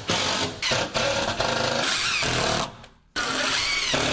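Cordless drill/driver driving screws into a wall panel. The motor runs in several bursts, its whine rising and falling, with a short stop about three seconds in before a final longer run.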